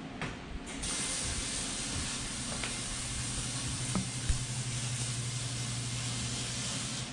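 A steady, even hiss sets in suddenly about a second in and holds on over a low steady hum, with a single sharp knock about four seconds in.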